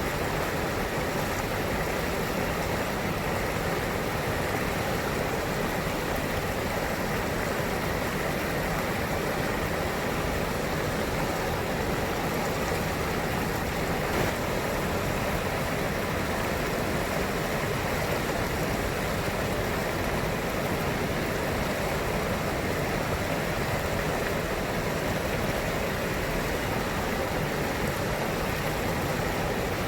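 River water running with a steady, even rush that does not change.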